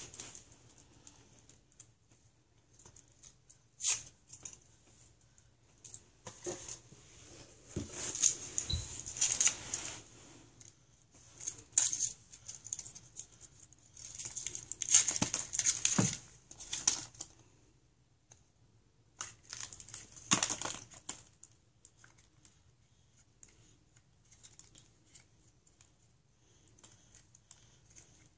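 Foil wrapper of a Kinder Surprise chocolate egg crinkling and tearing in short bursts with pauses between them as small hands peel it off. The crinkling dies down over the last several seconds.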